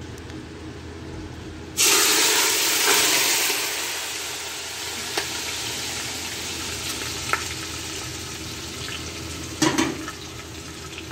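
A low steady hum, then, about two seconds in, mutton pieces sizzling loudly as they fry in their fat in a pot. The sizzle slowly eases, with a few small clicks and a short clatter near the end.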